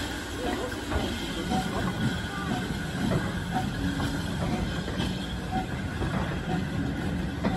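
Passenger coaches rolling slowly past, their steel wheels knocking and clicking over the rail joints over a steady rumble, with short squeaks recurring about once a second.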